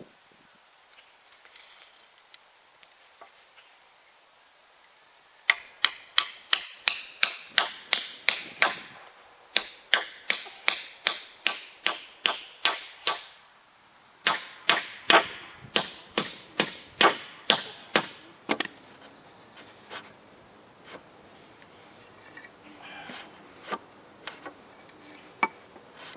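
Hammer driving nails into wooden form boards: three runs of quick blows, about three a second, each ringing with a metallic ping, followed by a few fainter scattered knocks.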